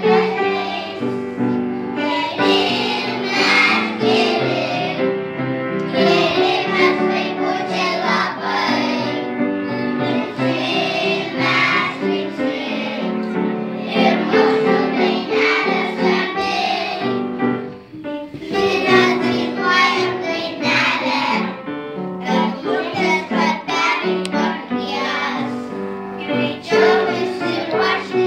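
A group of young children singing a Christmas song together over instrumental accompaniment.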